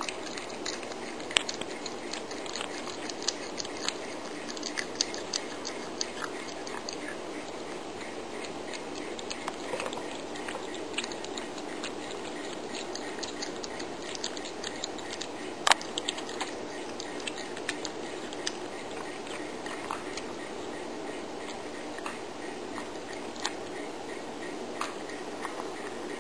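Calico cat chewing meat: irregular sharp clicks and snaps of its teeth, with one louder snap past the middle.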